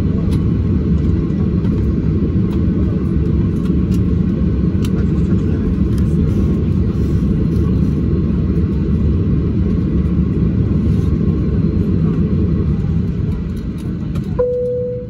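Steady low rumble inside the cabin of a Boeing 737-800 taxiing at low speed on its CFM56 engines, heard from a window seat over the wing. The rumble eases off near the end as the aircraft comes to its stand, and a short single tone sounds just before it ends.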